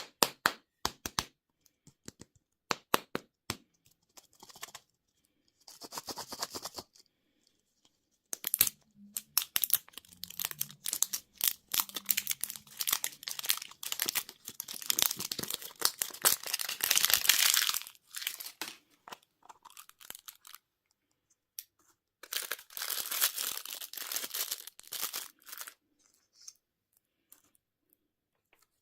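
Candy wrappers being torn open and crinkled by hand, with sharp clicks and snaps at first, then long stretches of crackling and crinkling with short pauses between them.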